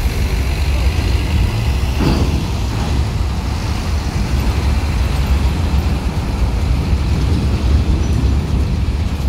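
Scania tour bus's diesel engine pulling under load as the bus climbs a ferry's loading ramp, a steady deep rumble, with a brief sharper noise about two seconds in.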